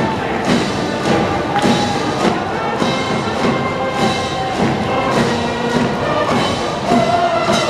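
Brass band music from a school cheering section in the stands, with a steady drum beat under the melody.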